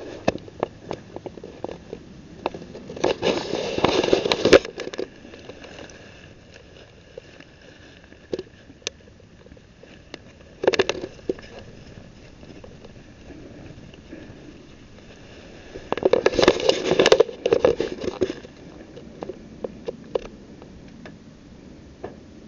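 Close rustling and crackling in two bursts, one about three seconds in and one around sixteen seconds in, with scattered sharp clicks in between.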